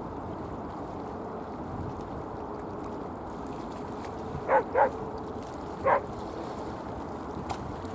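A dog barking three times, two quick barks then a third about a second later, over a steady rushing background noise.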